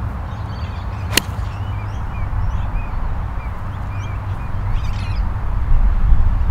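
A golf ball struck cleanly off the turf with a 4-iron: one sharp click about a second in. Under it runs a low wind rumble that grows louder near the end, with scattered faint bird chirps.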